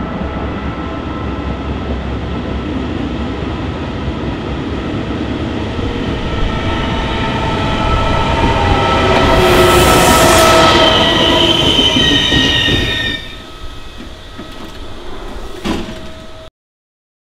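Passenger train pulling into a station, growing louder as it nears, with high-pitched wheel squeal peaking about ten seconds in. The sound drops away suddenly about three seconds later, a single sharp click follows, and then the audio cuts off.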